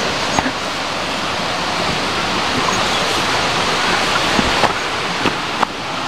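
Steady rush of falling water from a nearby waterfall, with a few soft footsteps on grass.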